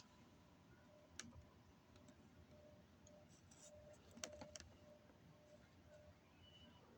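Near silence, with a faint click about a second in and a few more faint clicks around four seconds in.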